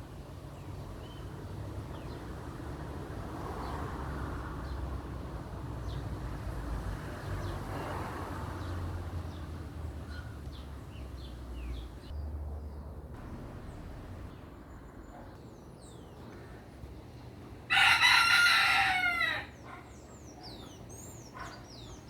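A rooster crowing once near the end, a loud drawn-out call of about a second and a half. Small birds chirp faintly around it over a steady low background rumble.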